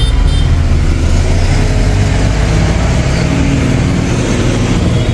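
Ashok Leyland truck's diesel engine running with a steady low rumble as the truck moves off.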